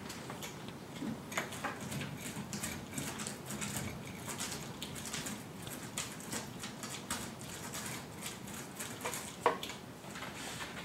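Paint roller working thick roll-on bed liner coating in its tray and across a corrugated truck bed floor: a steady stream of small, irregular sticky crackles, with one sharper click about nine and a half seconds in.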